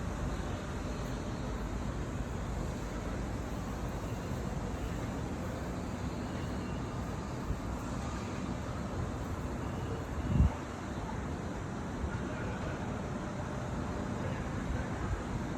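Steady low rumble of city street noise, with one brief low thump about ten seconds in.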